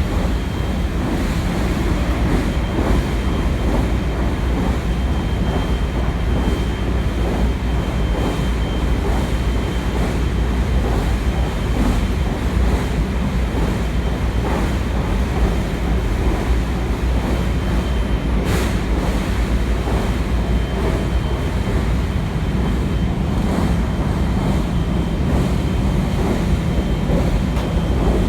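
Cabin running noise inside a JR West 223 series 0 subseries electric train: a steady low rumble of wheels on rail with a thin steady high tone over it, and a single sharp click about eighteen seconds in.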